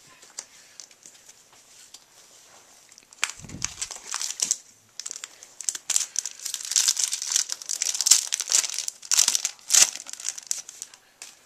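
Foil wrapper of a Yu-Gi-Oh booster pack crinkling and tearing as it is opened by hand, loudest in the last few seconds. Faint card handling before it, with a soft thump about three seconds in.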